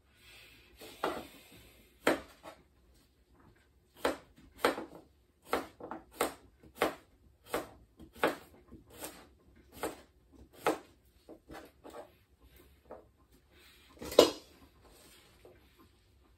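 Kitchen knife slicing a cucumber on a cutting board, each cut ending in a sharp knock of the blade on the board. A few scattered cuts, then a steady run about every half second, and one louder knock near the end.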